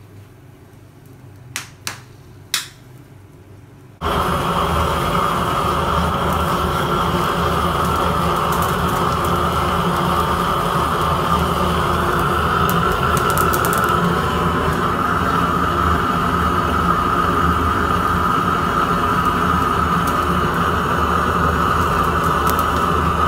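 A few sharp clicks over a quiet background, then, about four seconds in, the loud steady rushing hiss of a gas blowtorch flame, with a low rumble under it, as the torch singes the skin of a plucked chicken.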